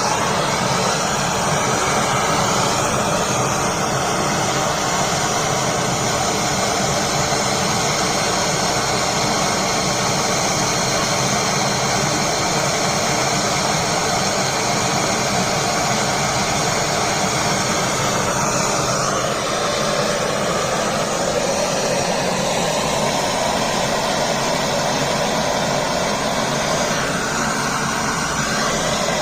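Gas brazing torch flame burning with a loud, steady rush, heating a copper-to-iron refrigerant tube joint for brazing.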